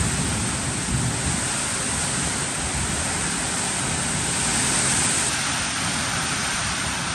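Heavy wind-driven rain pouring steadily onto a tiled terrace and a waterlogged yard: a dense, even hiss of a tropical downpour.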